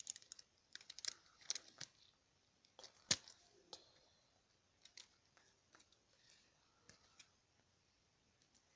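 Faint crackling and clicking of paper and sticky tape being handled and pulled off. The crackles come thick in the first four seconds, with a sharper snap about three seconds in, then thin to a few scattered ticks.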